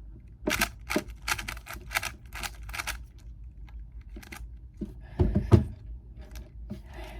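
GAN 11M Pro magnetic speedcube being turned fast: a quick run of clacking clicks as the layers snap into place on their magnets, then scattered turns. A louder knock with a low thud comes a little past five seconds in.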